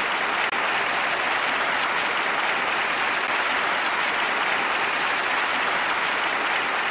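Large concert-hall audience applauding steadily: a dense, even wash of clapping.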